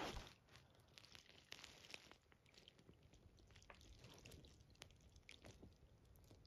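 Faint chewing on a toy: scattered small clicks and soft squishes, just after a louder sound dies away at the very start.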